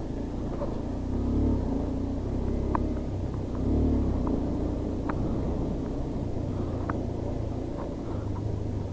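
Motorcycle engine running at low revs while ridden slowly over a rough, sandy off-road track, swelling briefly twice, with scattered light clicks and knocks.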